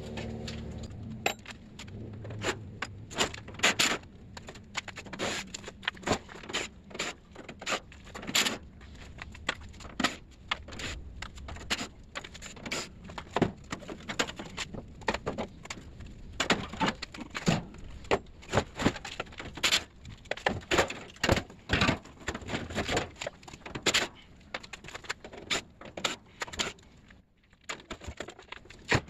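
Irregular metallic clinks, clicks and scrapes from the sheet-metal housing, screws and tools of an air-conditioner condenser unit being taken apart by hand, its fan grille lifted off.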